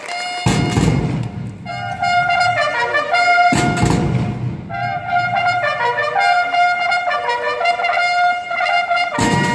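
Military drum corps playing a march: bugles sound a melody in short phrases while the drums strike in at the start of each phrase, about half a second in, again near four seconds and near the end.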